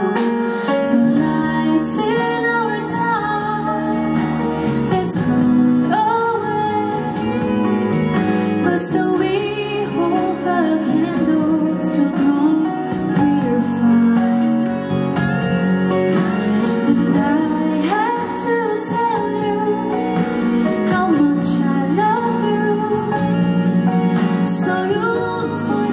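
A woman singing live into a handheld microphone, with instrumental accompaniment under her voice.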